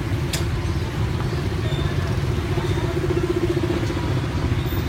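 A small engine running steadily nearby, a low, even rumble with a faint click about a third of a second in.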